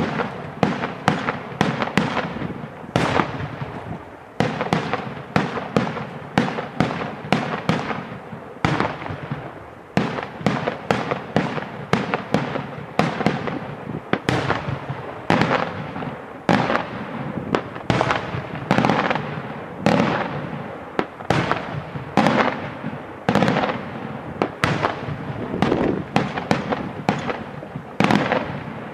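Daytime fireworks display: aerial shells and salutes bursting in a continuous barrage, sharp bangs about two to three a second, each with an echoing tail.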